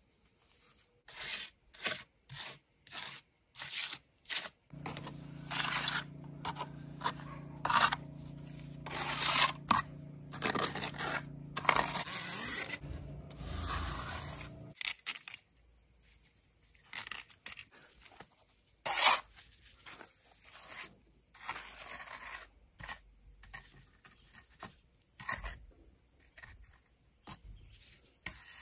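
Wet cement render being pressed and scraped by a gloved hand and a steel trowel over fibreglass mesh: a run of short, uneven scraping and rubbing strokes. A steady low hum from some motor runs under the strokes for about ten seconds, starting about five seconds in.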